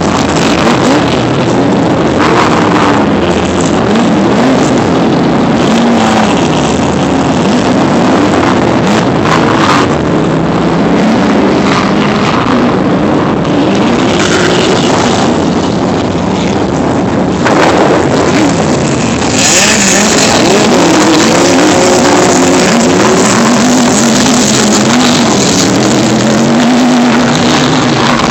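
Off-road race truck engine running hard, its pitch rising and falling over and over as the throttle comes on and off, over a steady rushing noise.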